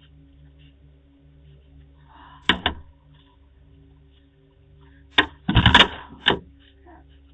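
Door clunks and knocks over a steady low electrical hum, heard through a Ring doorbell camera's microphone. There is one sharp knock about two and a half seconds in, and a louder quick run of knocks and rattles between five and six and a half seconds.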